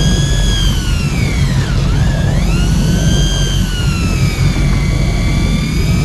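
An electric deep-drop fishing reel's motor whines, its pitch slowly sagging and rising as the load on the line changes. A steady low rumble of boat engine and water runs underneath.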